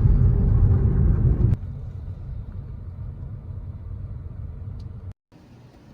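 Steady low rumble, loud for the first second and a half, then much quieter after an abrupt change, and cut off by a brief dropout near the end.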